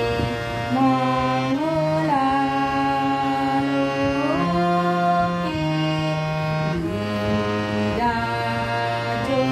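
Melodic music of long held notes that step and glide from pitch to pitch.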